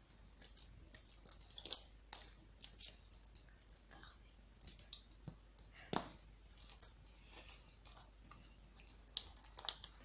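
A cat playing with a Christmas bauble under the tree: irregular light clicks, taps and rustling, with one louder knock about six seconds in.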